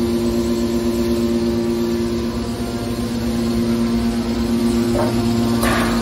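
Hydraulic power unit of a car scrap baler running: electric motor and hydraulic pumps giving a steady, loud hum with a low rumble. Two brief noises break through near the end, the second louder.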